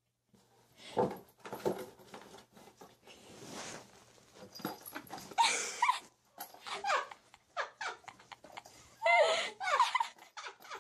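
A domestic cat meowing several times, with drawn-out calls that fall in pitch, the loudest near the end. Earlier there are a few soft knocks and rustles of a cardboard box.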